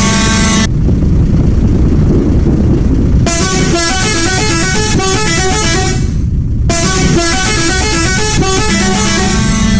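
A bus's musical multi-tone horn, an Indonesian 'telolet'-style horn, playing a quick stepping tune twice, each run about three seconds long, after a brief steady blast at the start. The bus's engine rumbles steadily underneath.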